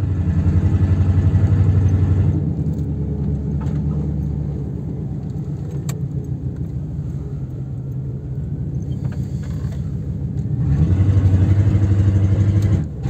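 Chevrolet G20 van's 5.7-litre V8 running on the road, heard from inside the cabin. It is louder for the first couple of seconds, eases off for several seconds, then gets louder again near the end.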